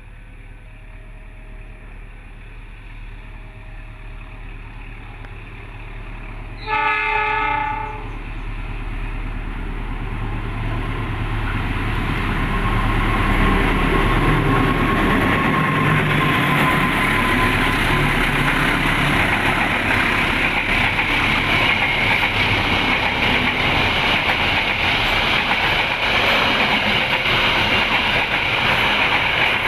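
A train's horn blows once for about a second. A train then approaches and runs past, its noise swelling and staying loud, with wheels clattering on the rails.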